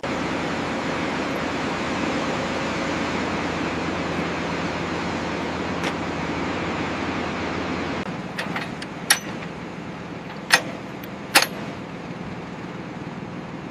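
Steady rushing mechanical noise that drops abruptly to a quieter background about eight seconds in, followed by a few sharp metallic clicks.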